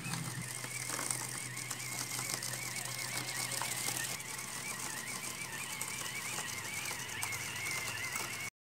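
Small electric gear motors of a cardboard carrier robot whining and rattling as it drives across a tiled floor, the thin whine wavering up and down in pitch. The sound cuts off suddenly near the end.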